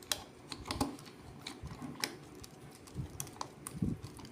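Irregular light clicks and ticks of a Phillips screwdriver turning out the cover screws of a molded case circuit breaker's plastic housing, with a few soft knocks from handling the breaker.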